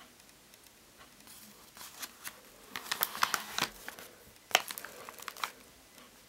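Paper pages of a handmade picture book crinkling and rustling as a page is turned by hand: a run of crackles, loudest about halfway through and again a little later.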